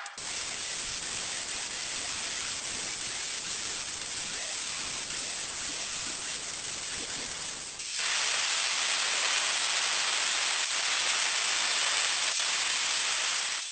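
Steady hissing noise of steel being worked, with no hammer blows. About eight seconds in it gives way to a louder, brighter hiss of a grinder cutting into the steel tomahawk blank and throwing sparks.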